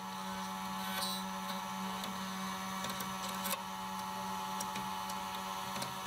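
Xhorse XC-002 Pro manual key cutter's motor running with a steady whine while its milling cutter cuts a double-sided key, with scattered ticks and scrapes of metal as the cutter works along the blade.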